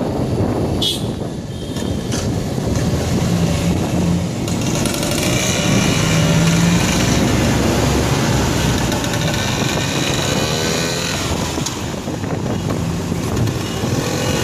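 Small motorbike engines running steadily in city traffic, with the noise of other passing vehicles.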